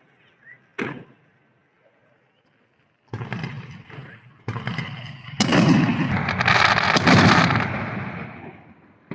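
Fireworks going off: a single sharp bang about a second in, then from about three seconds a dense run of bangs and crackling that grows loudest midway and fades away near the end.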